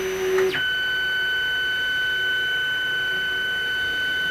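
Stepper motors of a desktop CNC router whining as the machine runs its homing moves. A lower hum about half a second in rises quickly to a steady, high-pitched whine that holds.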